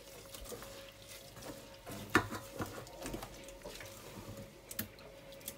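Gloved hand kneading wet grated cassava with sugar and water in a stainless steel bowl, working the sugar until it dissolves: soft, irregular squelching with small clicks, and one sharper knock about two seconds in, over a faint steady hum.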